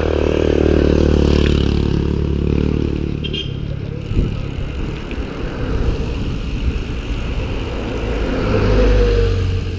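Wind buffeting the microphone of a bicycle-mounted action camera while riding. A motor vehicle passes in the first couple of seconds, its engine pitch dropping as it goes by. A jeepney passes near the end, its engine swelling briefly.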